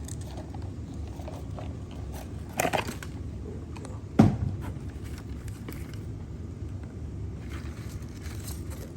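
Handling noises from moving between rodent enclosures: a brief scrape or rustle about two and a half seconds in, then a single sharp knock about four seconds in, over a steady low hum.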